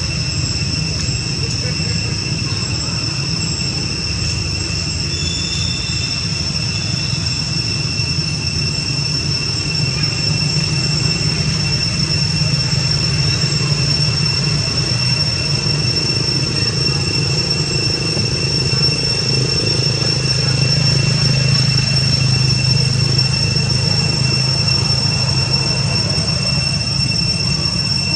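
Outdoor ambience: a steady high-pitched whine held on one pitch over a low rumble, growing slightly louder in the second half.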